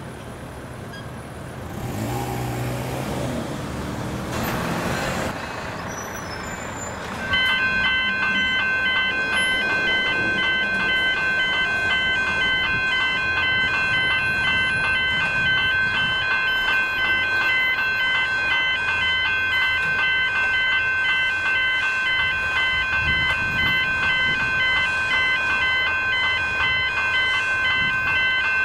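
A heavy vehicle drives past over the first few seconds. About seven seconds in, the level crossing's electronic warning bells and the pedestrian swing-gate alarms start abruptly as the crossing activates. They ring on steadily with a fast, even pulsing over a held tone.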